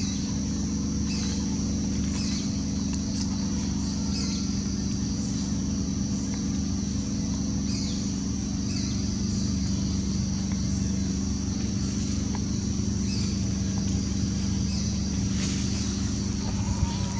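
Outdoor ambience: a steady low mechanical hum, like an idling engine, under a constant high-pitched drone, with short high chirps every second or so.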